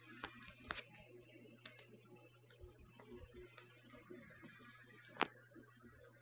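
Scattered clicks and knocks from a smartphone being handled, the sharpest about five seconds in, over a steady low hum.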